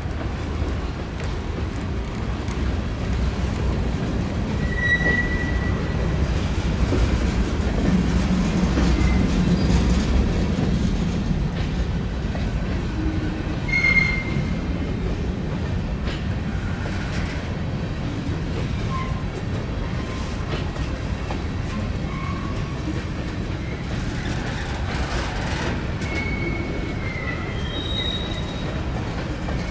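Train rolling past on the track with a steady rumble, its wheels giving several short, high squeals: about five seconds in, a sharp one near the middle, and a few more near the end.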